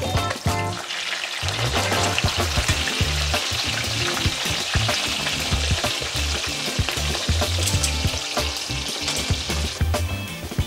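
Pork belly slices frying in hot oil in a stainless steel skillet: a steady sizzle peppered with quick crackles.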